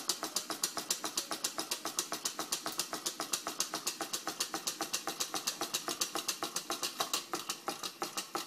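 Homemade soda-can Stirling engine running on candle heat, its crank mechanism making a fast, even ticking at about six clicks a second.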